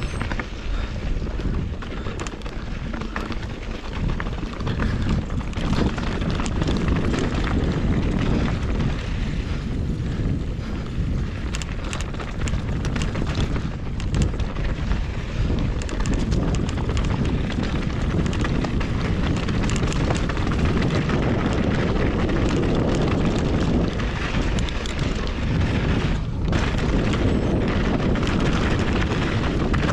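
Wind buffeting the microphone over the rumble and clatter of a fast ride down a rough dirt trail: a constant low roar with irregular knocks and rattles, and no engine note.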